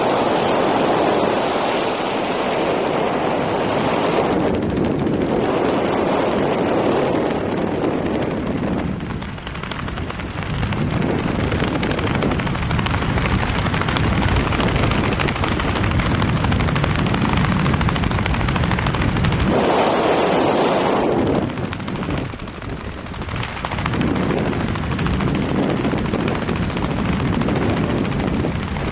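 Loud, rough rush of wind buffeting the microphone over the noise of a light aircraft in flight. It eases briefly twice, about a third of the way in and again past two-thirds.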